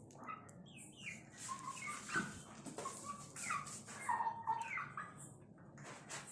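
Aseel chicks peeping: many short, falling chirps, repeated throughout, with a few scattered clicks.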